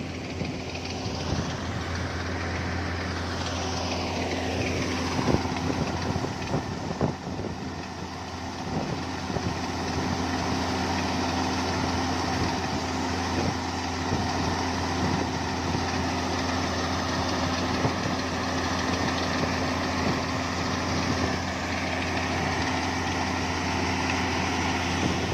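A diesel engine of harvest machinery runs steadily with a constant low hum, its pitch sliding down once in the first few seconds.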